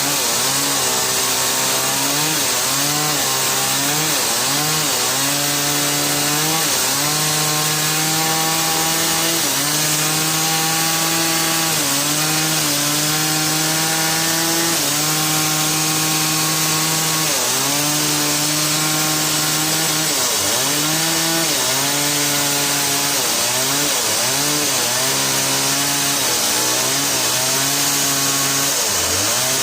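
Engine-driven saw cutting through wood. The engine holds a steady high pitch that sags briefly and recovers again and again as it takes the load of the cut, over the hiss of the sawing.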